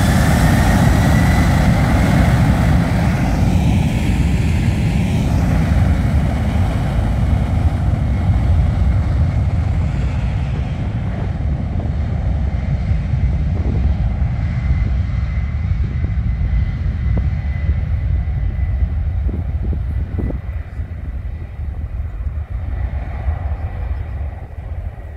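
Boeing 717 airliner's two rear-mounted turbofan engines at takeoff thrust, heard from behind the jet: a loud roar with a high whine that rises in pitch in the first second or two. The roar then slowly fades as the aircraft rolls away down the runway.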